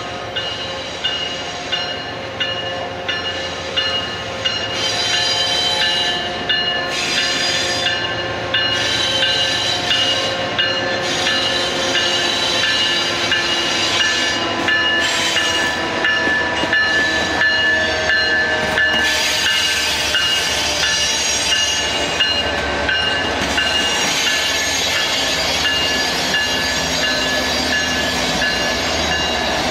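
Railroad cars rolling past with steady, high-pitched wheel squeal and sharp clicks every second or two as the wheels cross rail joints.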